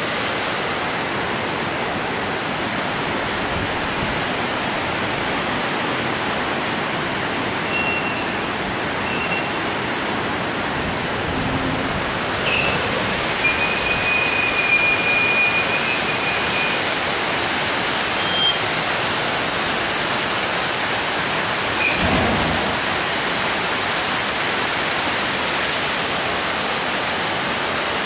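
Water pouring over a low concrete dam's spillway, a steady, even rush.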